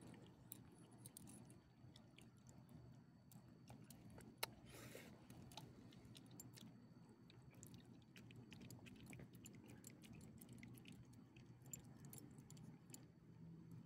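Faint wet clicks and smacks of a small dog chewing and licking chicken from a hand, with one sharper click about four and a half seconds in.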